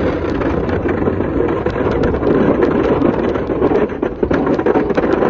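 Plow truck's engine running steadily while it pushes snow down a driveway, with a constant rushing noise and many scattered sharp clicks.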